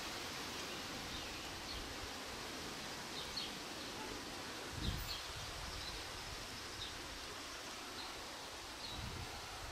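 Outdoor field ambience: a steady hiss with faint, scattered short bird chirps, and a brief low thump about five seconds in.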